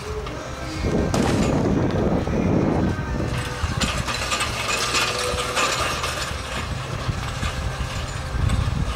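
Weighted prowler sled pushed along concrete, its metal base scraping and grinding over the ground, loudest from about one to three seconds in.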